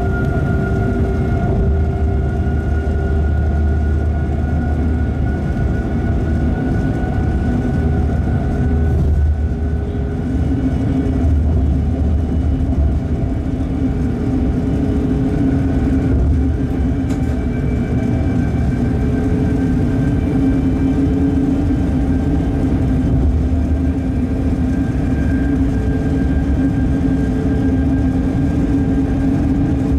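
Locomotive running on its own along the main line at speed: a steady rumble of wheels on rail, with several held humming tones from the locomotive over it.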